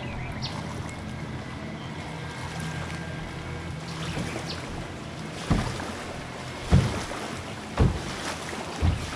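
Small aluminium jon boat under way: a steady low motor hum with water rushing past the hull. In the second half come four low thumps about a second apart.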